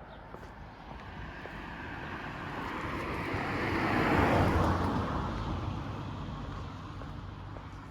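A vehicle passing by, its noise rising to a peak about four seconds in and fading away.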